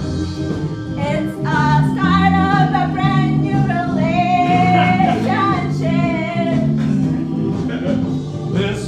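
A voice singing long held notes over musical accompaniment with a steady, stepping bass line.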